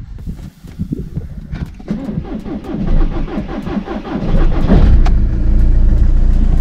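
Volkswagen starter cranking the engine for about four seconds before it catches, then the engine runs steadily at idle. The long crank comes from an undercharged battery, a battery that the smart-terminal (IBS) charging system leaves short of charge on short trips.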